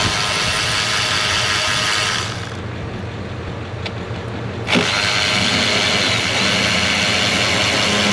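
A power tool runs in two bursts, the first about two and a half seconds and the second about four seconds after a short pause, backing out the bolts that hold the FICM (fuel injection control module) on a 6.0 Powerstroke diesel.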